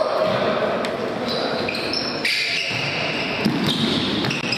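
Futsal ball being kicked and bouncing on a wooden sports-hall floor, echoing in the hall, with a sharp knock about three and a half seconds in.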